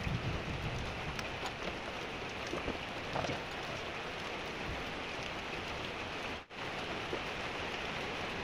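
Steady even hiss with a few faint clicks of a 10 mm wrench on the valve cover bolts of a Toyota 16-valve engine, about one, two and a half and three seconds in. The sound drops out for a moment a little past six seconds.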